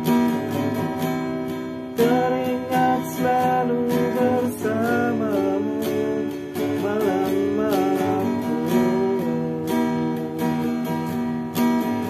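Acoustic guitar strummed in a steady rhythm. From about two seconds in until near the end, a man's voice carries a wordless melody over it.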